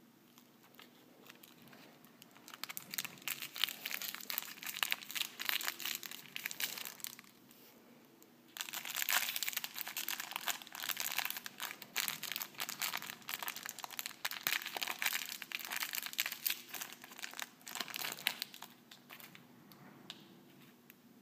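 Thin clear plastic wrapper crinkling as fingers work open the bag around a small toy figure. It comes in two spells of dense crackling, the second louder, starting about eight seconds in, and it dies away a couple of seconds before the end.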